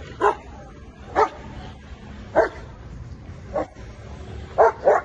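Trained K9 patrol dog barking at a hide box, its trained alert to a person hidden inside. About one bark a second, six in all, the last two close together near the end.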